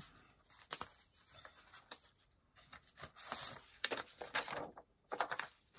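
Paper and craft materials being handled on a tabletop: on-and-off rustling with small clicks and taps, louder after about three seconds.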